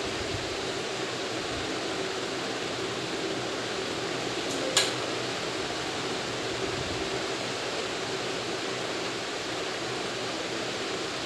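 Steady background noise with a faint hum, broken once about five seconds in by a single sharp click.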